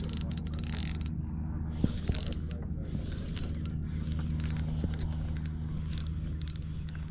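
Spinning reel being cranked to bring in a hooked fish, its gears whirring with irregular clicks and ticks, over a steady low hum.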